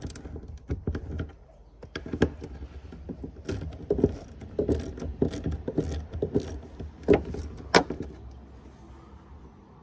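Hand tools clicking and clanking in an irregular string of metallic knocks, the two sharpest near the end, then tapering off.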